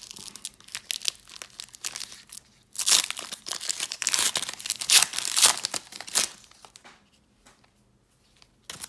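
Plastic foil trading-card pack wrapper being torn open and crinkled by hand, scattered crackles at first, then a loud stretch of crinkling and tearing in the middle.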